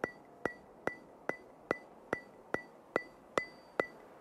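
Steady ticking: sharp, evenly spaced clicks with a short bright ring, about two and a half a second, stopping near the end.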